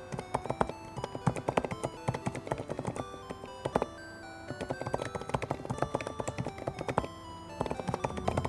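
Typing on a low-profile keyboard: rapid runs of soft key clicks with short pauses. Background music plays underneath.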